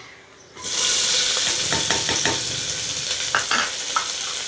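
Sliced onions and green chillies sizzling in hot oil and ghee in a pressure cooker. The sizzle starts suddenly about half a second in, and a spoon stirs and knocks against the pan a few times.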